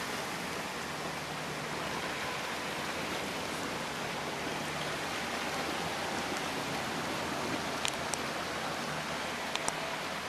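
Steady rush of heavy rain and running floodwater, with a faint low hum beneath it and a few short sharp clicks near the end.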